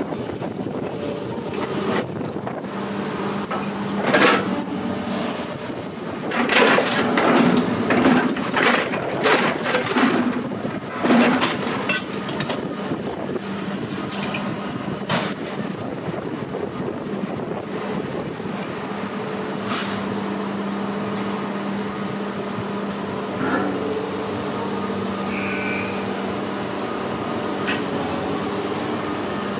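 Engine running steadily with a low, even hum. About six seconds in comes a spell of loud clattering and banging that lasts until about twelve seconds in, and a few single knocks follow.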